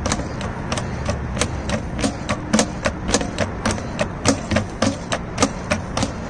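Hand-lever hydraulic test pump being stroked over and over, its lever and check valves giving a regular clack about two to three times a second as it builds hydraulic pressure toward 2.5 MPa for bleeding the shock absorber system.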